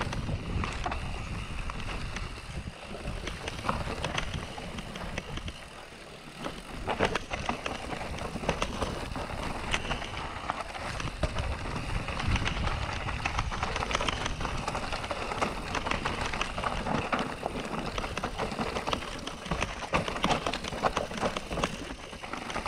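Canyon Neuron full-suspension mountain bike rolling down a rocky, gravelly singletrack: a continuous tyre rumble over stones, with frequent short clatters and rattles of the bike as it hits bumps.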